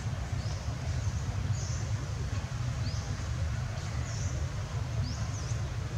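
Small birds giving short, high chirps about once a second over a steady low rumble.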